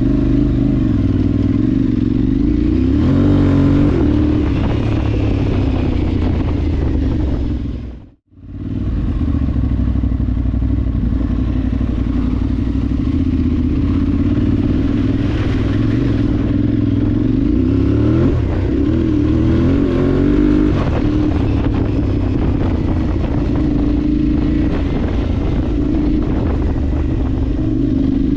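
Parallel-twin adventure motorcycle engine running under way, its revs rising and falling with throttle and gear changes. The sound cuts out for a moment about eight seconds in.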